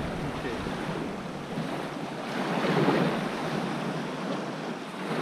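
Small waves lapping in shallow bay water, with light wind on the microphone; the wash swells and eases a couple of times.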